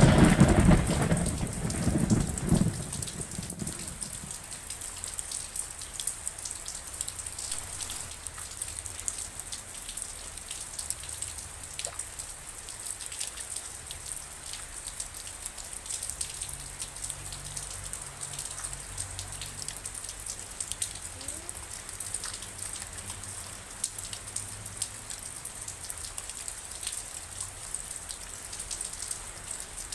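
Rain falling steadily, with a roll of thunder dying away over the first few seconds. After it, many single drops tick against the hiss of the rain.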